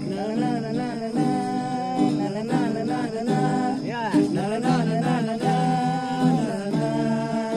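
Acoustic guitar playing with a voice singing a Nepali song.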